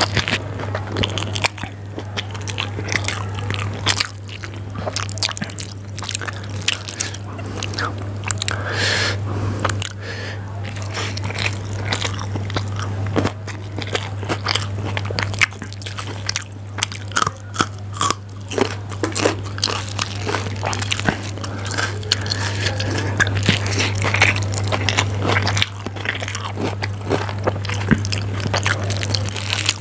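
Close-miked eating of Maggi instant noodles: wet slurping of strands sucked into the mouth, and chewing with many irregular mouth smacks and clicks. A steady low hum runs underneath.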